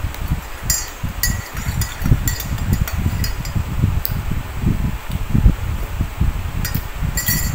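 Metal spoon clinking against a ceramic coffee mug as coffee is stirred, a series of short ringing clinks, over dull low knocks and bumps.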